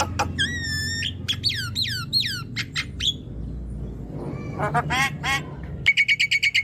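Javan myna singing a varied, chattering song: harsh clicks and squawks, whistled notes sliding downward, and near the end a fast rattling run of repeated notes.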